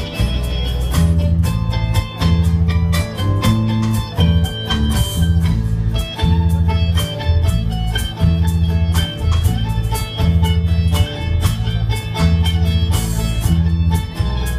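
Live blues band playing: acoustic guitars and drums over a loud, repeating low bass riff.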